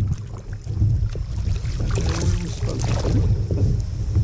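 Wind buffeting an action camera's microphone on a kayak, making a steady low rumble, with water splashing and scattered small clicks as a hooked fish is fought on the rod.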